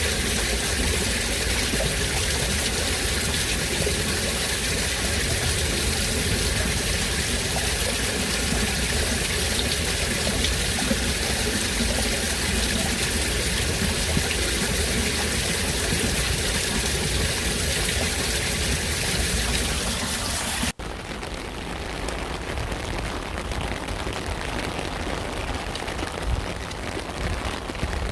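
Rain falling, a dense steady hiss. About 21 seconds in, it cuts abruptly to a quieter rain recording with more separate drop hits.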